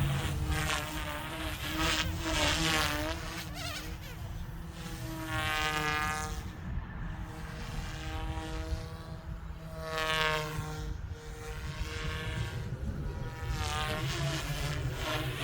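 Goosky S2 small electric RC helicopter in flight: a high-pitched motor and rotor whine that slides up and down in pitch as it manoeuvres, swelling and fading several times as it comes near and moves away.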